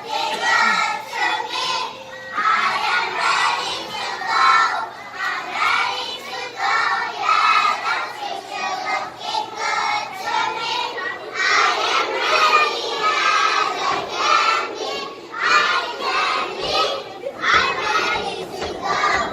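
A group of children's high voices singing and shouting together, a lively mass of overlapping voices.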